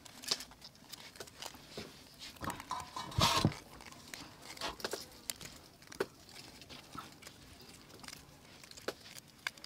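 Scattered small clicks, ticks and rustles of hands handling raw chicken and tying it to a split bamboo skewer with thin string. A brief, louder noisy sound comes about three seconds in.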